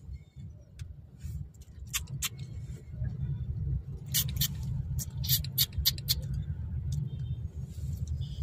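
Steady low rumble of a car idling in slow city traffic, heard from inside the cabin, with a run of short, sharp, high clicks between about two and six seconds in.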